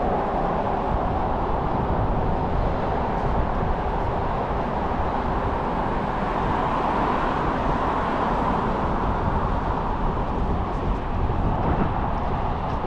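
Steady rushing noise of a scooter ride, wind and rolling wheels on pavement, with no breaks.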